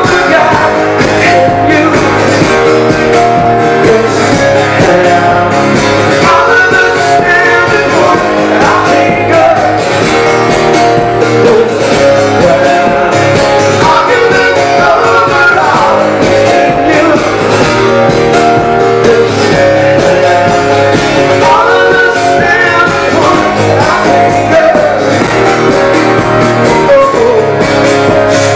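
Live rock band playing loudly, guitars to the fore, with a voice singing over it at times.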